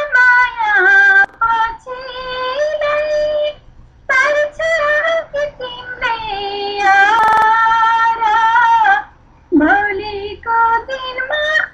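A woman singing a Nepali song solo with no instrumental accompaniment, in phrases of long held, wavering notes broken by short pauses for breath. A brief click sounds about seven seconds in.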